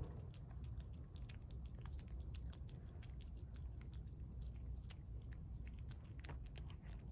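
Cat eating, faint: quick, irregular small chewing clicks and crunches over a low steady rumble.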